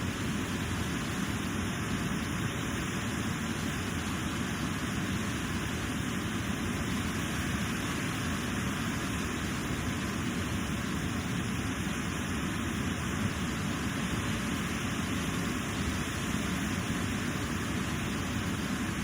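Steady rush of the Elk River's water pouring and cascading over rocks, an unbroken even roar with no changes.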